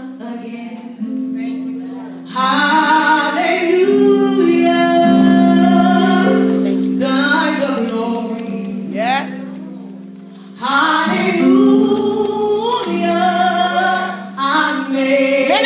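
A woman singing a gospel solo into a microphone over held, sustained instrumental chords, with a lull about two-thirds of the way through before she comes back in strongly.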